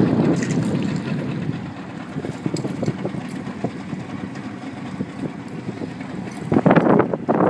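Wind buffeting the microphone over open water: a strong rush at first that eases off after a second or so, then two loud gusts near the end.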